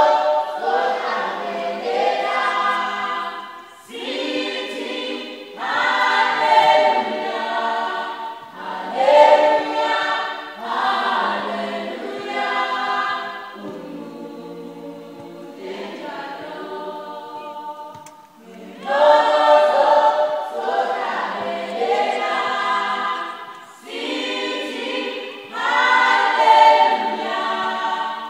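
A church youth choir rehearsing, many voices singing together in phrases a few seconds long, with a softer stretch about halfway through.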